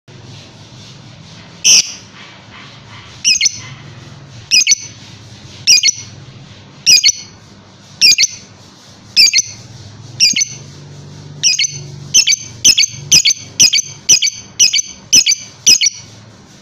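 Lovebird calling in a run of sharp, shrill chirps, about one a second, quickening to about two a second over the last four seconds.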